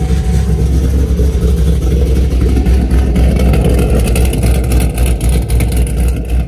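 The supercharged 6.2-litre LSA V8 of a ZL1 Camaro is running. Its exhaust note is a steady low rumble, heard at the quad tailpipes.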